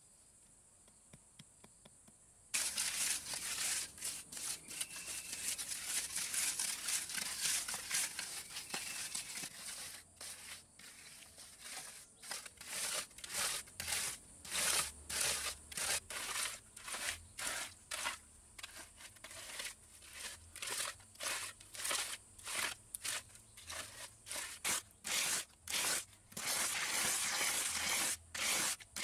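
A small hand-held block scraped back and forth over wet cement, smoothing a fresh floor: a rough rasping that starts suddenly a couple of seconds in, runs almost continuously at first, then breaks into quick separate strokes, one to two a second.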